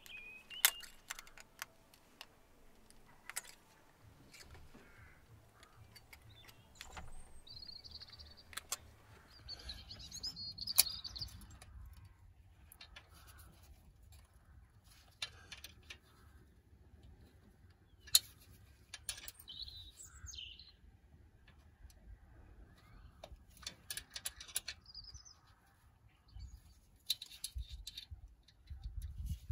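Spanners clicking and clinking against the rocker-arm adjusters and locknuts of a BMW M10 engine's valve gear while the valve clearances are set, in scattered sharp clicks. Birds chirp in the background a few times.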